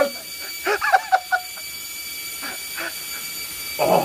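A man gagging and retching while brushing his teeth deep at the back of his mouth: a run of short, strained, croaking throat sounds that bend in pitch, then a short spit near the end.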